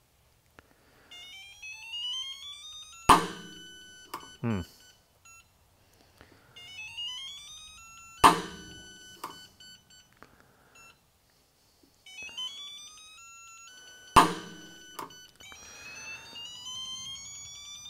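Stahlwille mechanical torque wrench pulled on a torque tester three times: each time a tone rises in pitch for about two seconds, then the wrench gives a sharp click on reaching its set torque, followed about a second later by a softer knock as it is let off.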